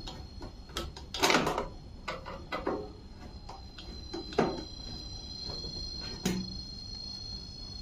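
Screwdriver backing a screw out of the sheet-metal cabinet of a microwave oven: a handful of separate clicks and short scrapes, the loudest a scrape about a second in.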